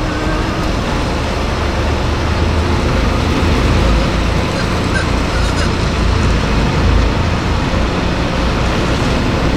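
Semi-truck diesel engine running at low speed with a steady low rumble, heard from inside the cab as the tractor-trailer backs slowly toward a loading dock.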